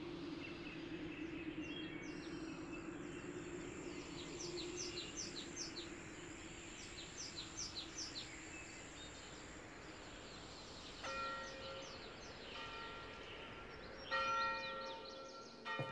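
Outdoor ambience: birds chirping over a faint steady hum, then a bell struck several times in the last few seconds, each stroke ringing on.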